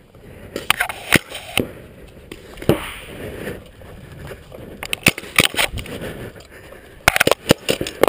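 Paintball markers firing: sharp single pops spaced irregularly through the first half, then a quick string of shots about seven seconds in.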